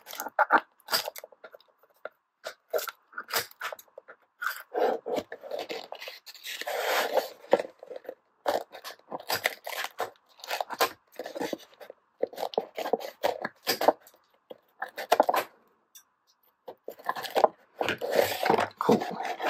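Cardboard packaging being handled: irregular scrapes, crunches and clicks, with scissors snipping the rubber bands that hold the die-cast cars to the cardboard tray near the start. Longer scraping stretches come about five seconds in and near the end.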